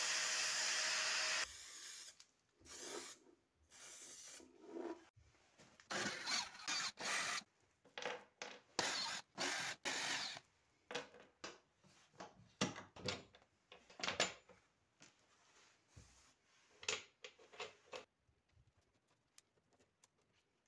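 A grinding wheel grinds a steel plate and stops abruptly about a second and a half in. Then a cordless drill runs in a series of short bursts, drilling mounting holes through a plastic flap, until near the end.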